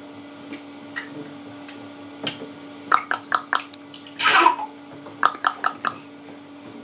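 A baby splashing in a plastic baby bathtub, slapping the water and knocking a wooden spoon against the tub and plastic cups in a run of short splashes and knocks. About four seconds in there is a brief squeal of baby laughter.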